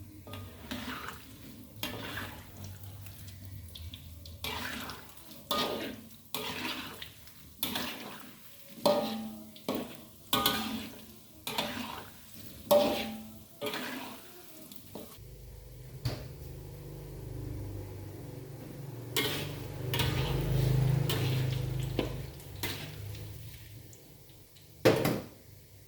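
Kitchen clatter: dishes and utensils knocking and clinking, about fifteen separate knocks over the first half, then a steady rushing noise, like water running into a sink, for several seconds, and one more knock near the end.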